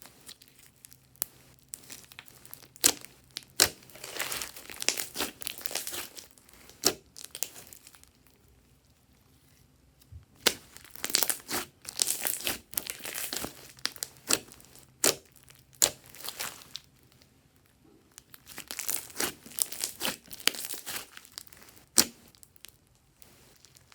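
Glossy slime being squished and stretched by hand, giving dense crackling and popping clicks with a few sharp snaps, in three bouts with short pauses between.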